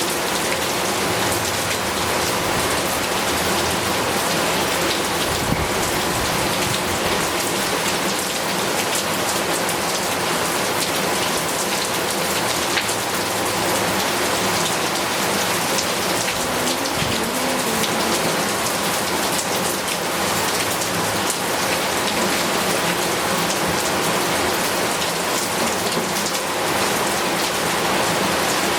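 Heavy rain falling steadily, a constant hiss of drops on surfaces with many small patters.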